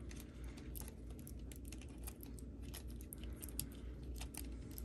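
Faint, scattered plastic clicks and ticks of a 2S LiPo battery and its wire leads being worked by hand into the battery box of a Basher Rocksta 1/24 mini rock crawler, over a low steady hum.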